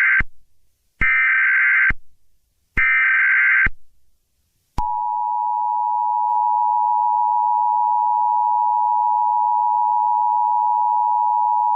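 Emergency Alert System SAME header: the tail of one burst of warbling data tones, then two more, each about a second long. A second later the steady two-tone EAS attention signal starts and holds to the end. The sequence introduces a National Weather Service excessive heat warning.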